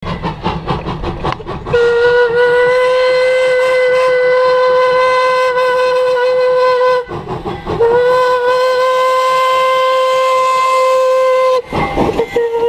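Steam locomotive Flagg Coal No. 75 blowing its steam whistle in two long, steady blasts of one pitch, the first about five seconds and the second about four. Rapid rhythmic exhaust chuffing is heard at the start, in the short break between the blasts, and near the end as the engine draws level.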